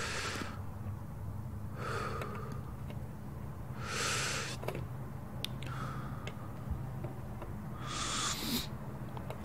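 Slow, heavy breathing close to the microphone, one breath about every two seconds, alternating stronger and softer, over a low steady hum.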